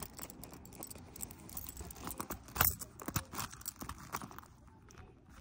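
Gold-tone metal key rings and clip on a small zippered coin purse clinking and rattling as the purse is handled. It makes a string of light clicks, with one louder clack about halfway through.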